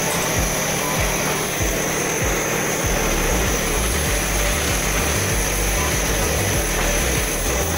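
Background music with a pulsing bass line, over a steady high hiss.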